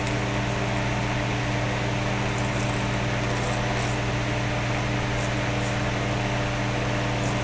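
Steady electric hum with a constant hiss from a running shop machine, unchanging throughout, with a few faint scratchy touches over it.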